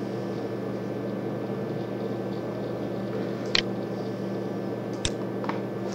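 Steady low electrical or fan hum from the recording setup, with a few sharp computer-mouse clicks: one about three and a half seconds in, another about five seconds in and a fainter one just after.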